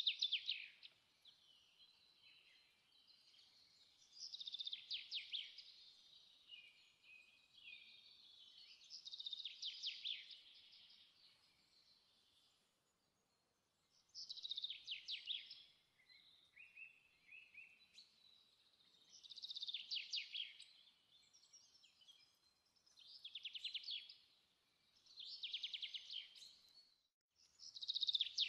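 Songbird singing: short, high trilled phrases of about a second each, repeated every three to five seconds.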